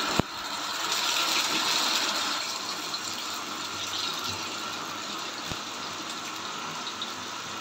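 Masala-coated Indian mackerel sizzling in hot oil on a cast-iron tawa as the fish are laid in. The sizzle is loudest in the first couple of seconds, then settles to a steady frying hiss. There is a sharp tap just after the start.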